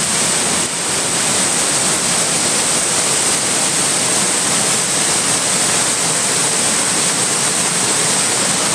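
Floodwater gushing through a breach in an irrigation tank's earthen embankment: a loud, steady rush of turbulent water.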